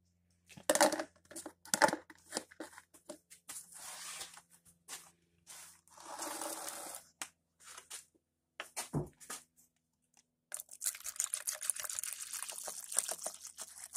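Evapo-Rust rust remover being poured into a container over a hammer head, trickling and splashing in several spells, the longest near the end. A few sharp knocks come about a second in.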